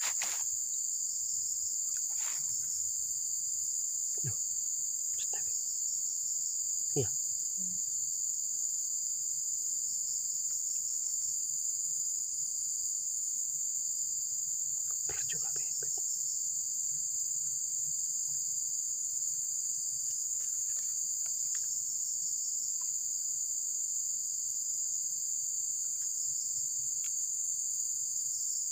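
A steady, high-pitched insect chorus droning without a break, with a few faint knocks along the way.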